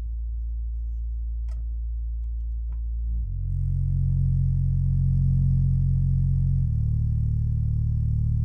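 Large woofers mounted in a cardboard box playing deep, steady bass tones that step to a new note about three seconds in and again about six and a half seconds in.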